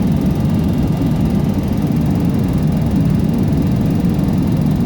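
Boeing 737 flight simulator's cockpit sound on short final: a steady low rumble of simulated jet engines and airflow.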